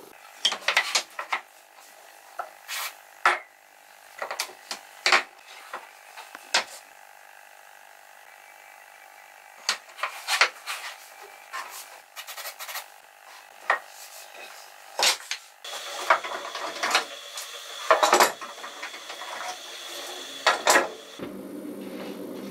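Scattered sharp taps and knocks of wooden strips being handled and pressed onto a board. About two-thirds of the way in comes a steady hiss of an aerosol glue activator being sprayed, with more knocks over it.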